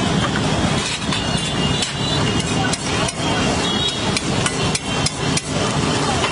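Metal spatula clanking and scraping against a large flat iron griddle, sharp irregular knocks two or three times a second over steady background noise.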